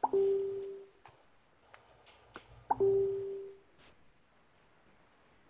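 Facebook Messenger new-message alert sounding twice, about two and a half seconds apart. Each is a short pop followed by a brief held tone, marking a chatbot message arriving in the conversation. Faint clicks fall between the two alerts.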